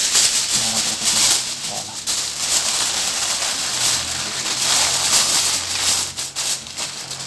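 Aluminium foil being crinkled and pressed around a cooking pot to seal it, a continuous crackling rustle.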